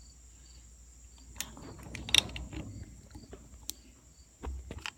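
Hand lever pop-rivet tool being worked on sheet-metal lockers: a string of irregular metallic clicks and rattles as the handles are squeezed and the jaws grip the rivet, the sharpest about two seconds in.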